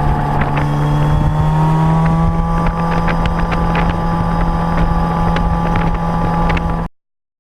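Suzuki GSR 600 inline-four engine running, its revs rising slightly about a second in and then holding steady, with irregular light clicks over the engine note. This is the rattle the owner hears when accelerating; its cause is unknown.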